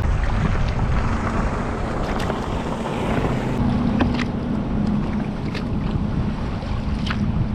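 Wind buffeting the microphone and water washing around a kayak on open water. A steady low hum runs under it and cuts out near the end, and a few light knocks come through.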